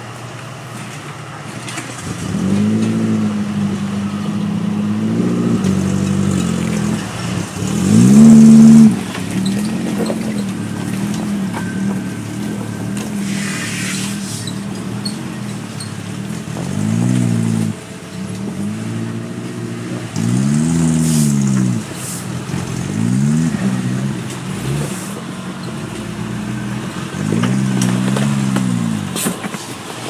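Off-road 4x4 truck engines revving in repeated bursts, each rising and falling, as they crawl over the rocks. The loudest rev comes about eight seconds in.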